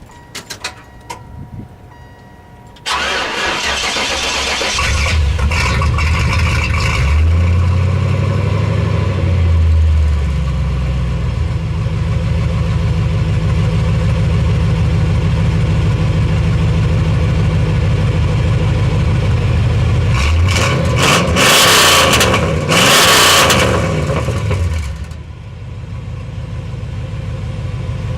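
Car engine cranking on the starter for a couple of seconds before it catches, a hard start, then rising in speed and settling to a steady idle. Near the end the throttle is blipped twice, the engine rising and falling each time before it drops back to idle.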